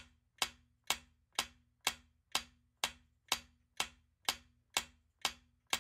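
Quiz countdown-timer sound effect: clock-like ticking, about two sharp, evenly spaced ticks a second, each trailed by a short low tone.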